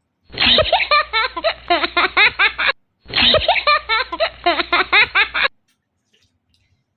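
Laughter sound effect, a burst of rapid giggling played twice in a row, each time starting and stopping abruptly.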